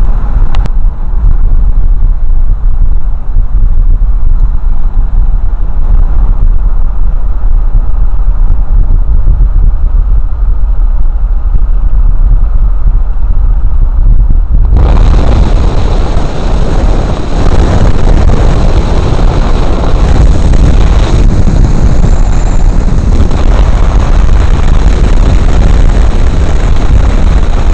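Wind buffeting the microphone at an open side window of a moving vehicle, over steady road and engine noise, loud throughout. About fifteen seconds in it turns suddenly brighter and hissier.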